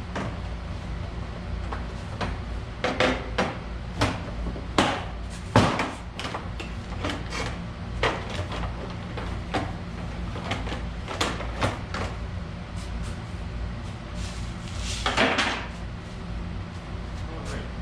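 Irregular clicks, knocks and rattles of hand tools and plastic body panels being handled while the ATV's front cover is taken off, with one louder knock about five seconds in and a short scraping rattle near the end. A steady low hum runs underneath.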